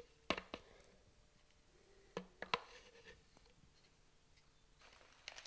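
Two pairs of short, sharp knocks about two seconds apart: a spoon knocking against a blender jug as thick, freshly blended vegetable pâté is scraped out into a pot.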